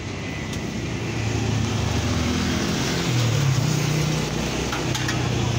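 Engine of a passing road vehicle droning, growing louder toward the middle and easing off a little near the end, with a few faint clicks.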